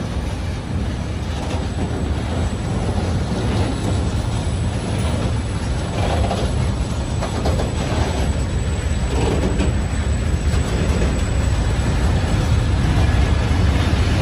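Freight train of tarpaulin-covered wagons rolling past, a steady rumble of wheels on rail that grows a little louder near the end.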